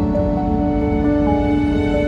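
Background music with slow, held notes that change every half second or so, over a steady low rumble.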